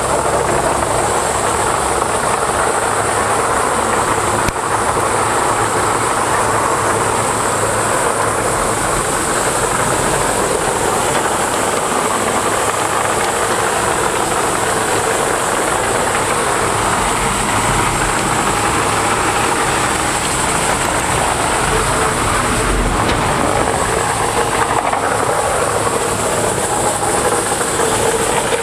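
Morbark 2755 flail chipper running under work, a loud, steady mechanical din with a strong high hiss, its newly installed feed wheel in use.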